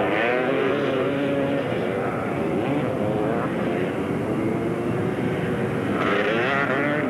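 Several ATC three-wheeler racing engines revving, their pitch wavering up and down as the riders work the throttle. The engines get louder and higher near the end.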